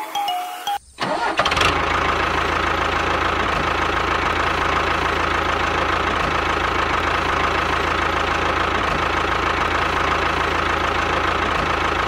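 A motor starts about a second in and then runs steadily. It is a constant low rumble with an even whine above it, the running sound of the mini toy tractor.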